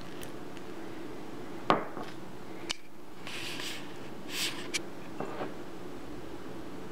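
A sharp knock about two seconds in, a lighter click a second later, then two brief hissing rustles and a few soft clicks, over a steady low hum: handling noises on a countertop.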